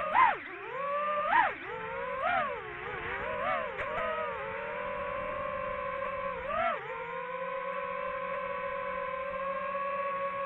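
DJI FPV drone's electric motors and propellers whining. The pitch surges up and dips back several times with quick throttle changes, then settles into a steady hum about two-thirds of the way through.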